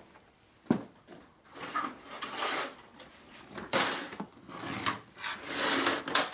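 Metal drill-bit index case being handled on a workbench: a sharp knock about a second in, then a few seconds of clattering and scraping as the case is set down and moved about.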